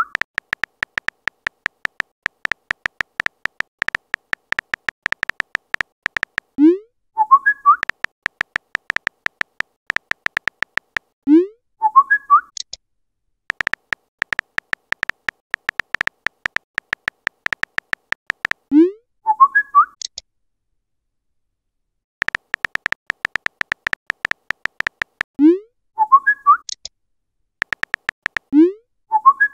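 Rapid, even keyboard-typing clicks of a phone chat app, broken five times by a message-sent sound: a short rising swoop followed by a few quick chirpy notification tones.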